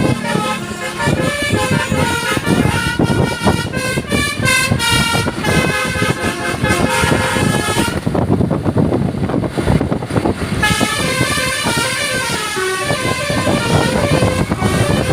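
Basuri V4 telolet multi-tone bus horn playing a melody of stepped notes, with the bus engine running underneath. The melody breaks off for about three seconds just past the middle, then starts again.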